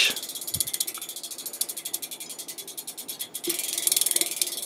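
Freewheel pawls of a hub-motor e-bike rear wheel ticking fast and evenly as the wheel spins freely, a little louder from about three and a half seconds in.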